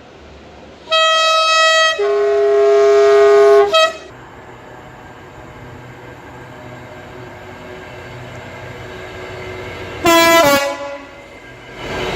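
Locomotive air horn sounding: a blast of about a second, then a longer chord of several notes at a different pitch, ending in a short toot. Then the rumble of the approaching train builds, and a brief second horn toot near the end drops in pitch.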